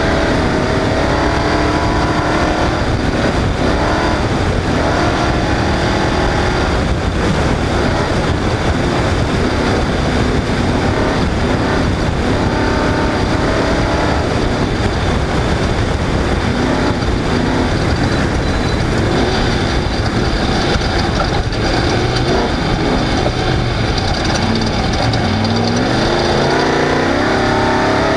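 Off-road race vehicle's engine running hard, its pitch repeatedly climbing and dropping as the throttle is worked, over a steady rush of noise from the vehicle at speed.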